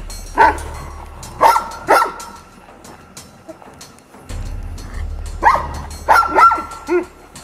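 Large livestock guardian dogs giving short, sharp barks and yelps in a dominance confrontation between two males: three calls in the first two seconds, then a quicker cluster of four or five from about five to seven seconds in, over background music.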